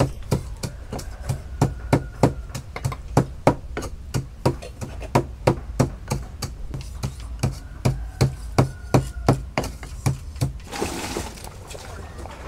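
Wooden pestle pounding salt and chilies in a wooden mortar, a steady beat of dull knocks about three a second. The knocks stop near the end and a steady hiss of a pot boiling over a wood fire takes over.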